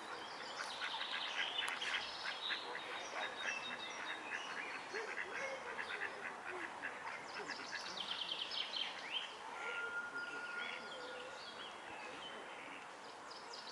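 Birds calling and singing, with several rapid trills of high notes, over a steady outdoor background hiss.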